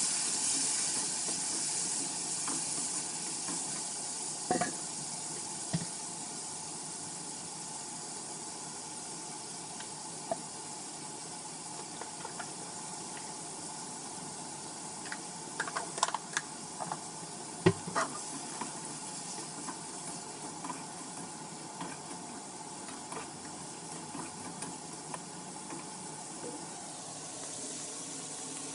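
Food sizzling in hot oil in a pan, a loud hiss that slowly dies down, with occasional clinks and scrapes of a utensil stirring it, several of them close together about two-thirds of the way in.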